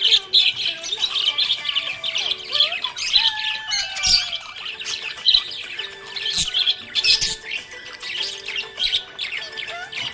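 Budgerigar chirping and warbling, a fast, unbroken stream of short high chirps.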